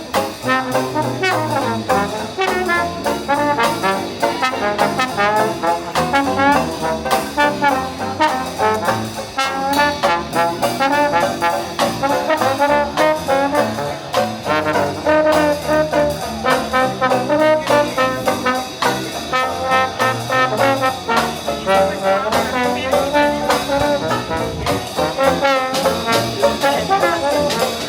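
A live Dixieland jazz band playing an upbeat brass-led tune with a steady beat.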